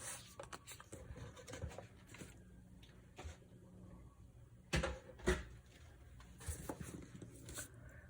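Faint rustling and light taps of cardstock and tools being handled on a work surface, with two sharper taps about half a second apart a little under five seconds in.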